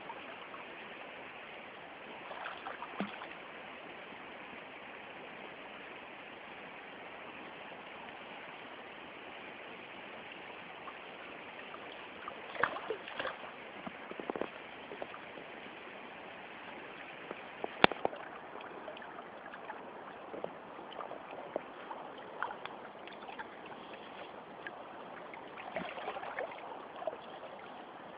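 Steady rush of fast-flowing river water close around the microphone, with scattered splashes and sharp knocks; the loudest, a single crisp click, comes a little past the middle.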